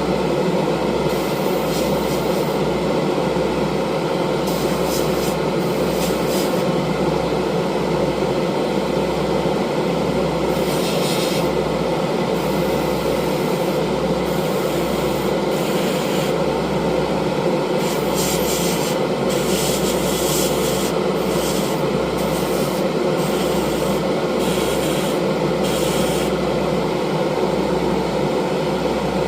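Continuous rubbing, scraping noise of abrasive hand work, with short stretches of sharper hiss every few seconds.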